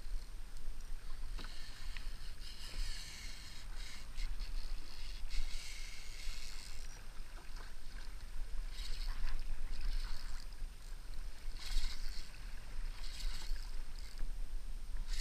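Small waves slapping and splashing against a kayak's hull in irregular surges, over a steady low rumble.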